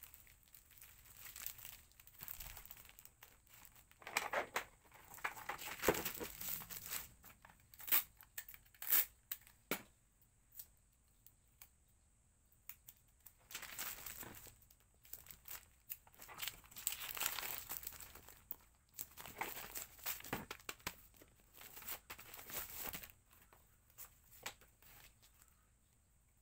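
Paper or plastic packaging being handled, crinkled and torn in spurts of rustling with short pauses between, and a few sharp clicks about a third of the way through.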